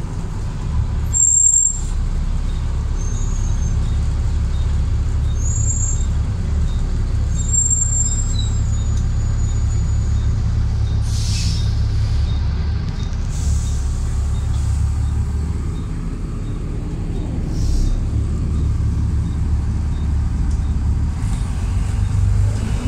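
Double-decker bus's engine and drivetrain rumbling steadily, heard from inside on the upper deck while the bus is under way. A short hiss of air from the bus's air system comes about eleven seconds in, with fainter ones a little later.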